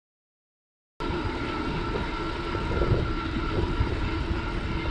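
Wind rumbling on the microphone of a camera riding along on a moving bicycle, with a steady thin whine over it. It cuts in suddenly about a second in, after silence.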